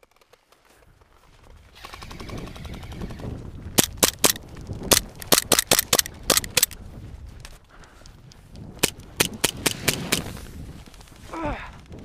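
Airsoft pistol fired in quick single shots, two runs of sharp cracks a few tenths of a second apart, after a short rapid rattle of airsoft fire about two seconds in.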